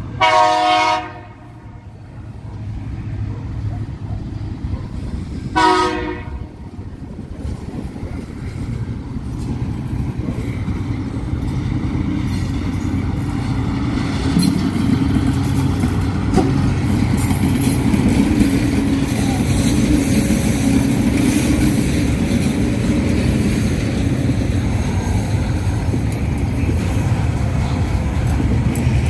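Horn of Tasrail TR class diesel locomotives sounds twice, a blast of about a second and then a shorter one some five seconds later. The locomotives' diesel engines then rumble closer and past, followed by loaded log wagons rolling by with a steady clatter of wheels on rail.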